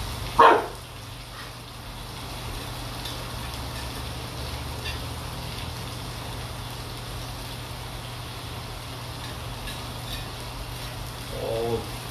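A dog barking: one loud, sharp bark about half a second in and a shorter, lower call near the end, over a steady low hum.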